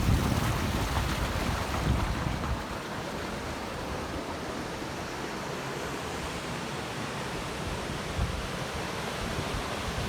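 Steady rush of falling or running water from a mountain stream or waterfall, with wind buffeting the microphone in low gusts during the first couple of seconds and again near the end.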